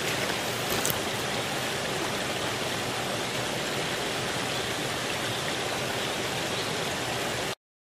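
Water running steadily at a beaver dam, an even rushing hiss, with one brief click about a second in. The sound cuts off abruptly near the end.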